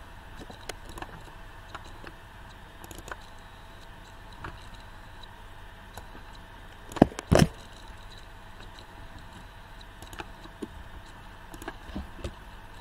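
Computer mouse and keyboard clicks while text is copied and pasted: faint scattered clicks over a steady background hum, with two louder clicks in quick succession about seven seconds in.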